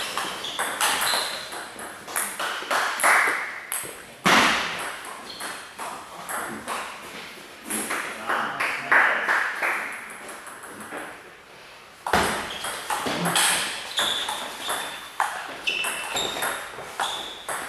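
Table tennis rallies: the ball clicks off the rubber-covered bats and bounces on the table in a quick back-and-forth of sharp pings.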